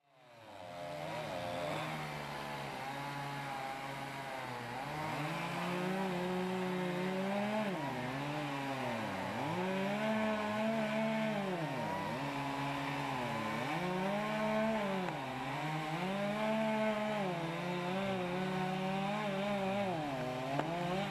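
Two-stroke chainsaw making the felling cut through a standing tree's trunk. The engine note sags repeatedly, about every two seconds, as the chain bites into the wood under load, then picks back up.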